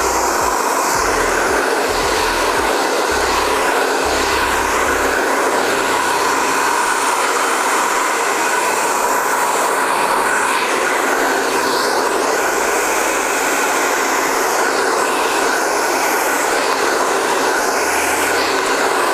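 Handheld hair dryer running steadily at full blast, a constant rush of air with a steady whine in it.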